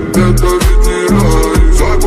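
Background music with a steady beat of about two beats a second, a deep bass line and hi-hat ticks.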